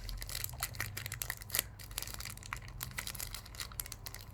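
Packaging crinkling and crackling in irregular small crackles as a wrapped charging cable is handled and unwrapped.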